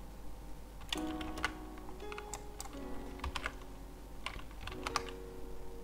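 Computer keyboard keystrokes, a scattered run of sharp clicks, over soft background music with sustained notes.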